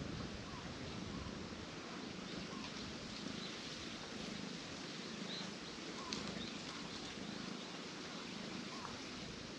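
Cat purring, a low rumble that swells and fades about once a second with its breathing, with faint bird chirps in the background and one brief click about six seconds in.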